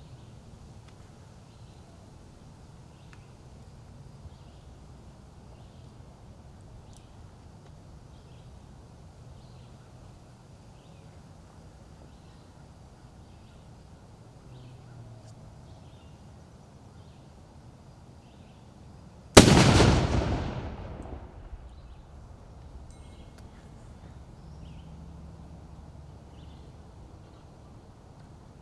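Muzzle-loading field cannon firing a salute shot about two-thirds of the way in: one sudden loud blast that rumbles away over about two seconds.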